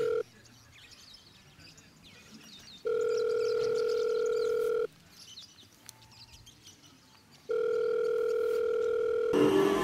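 Telephone ringback tone: a steady low tone repeating in a cadence of about two seconds on and two and a half seconds off, the sound of a call ringing out unanswered. Near the end a louder rushing noise with wavering tones cuts in.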